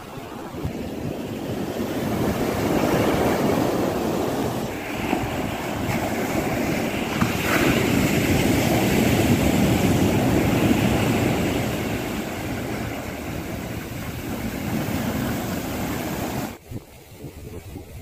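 Ocean waves breaking and washing up a sandy shore, the surf swelling and ebbing in two large surges, then dropping suddenly to a quieter wash near the end.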